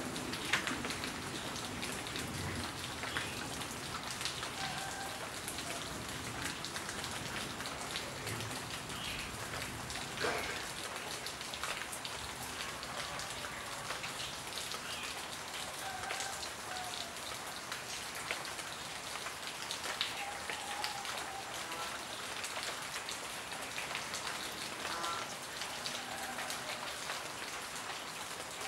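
Steady rain falling, an even hiss dotted with many separate drop hits.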